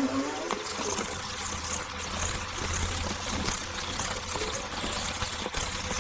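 Victorinox Santoku's steel blade being ground on a water-soaked combination whetstone to thin it: steady wet scraping and rasping of steel on wet stone.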